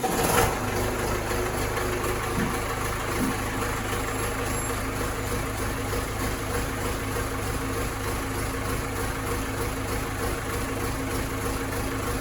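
John Deere 6300 tractor's four-cylinder diesel engine idling steadily, run after an oil change so the new oil filter fills with oil.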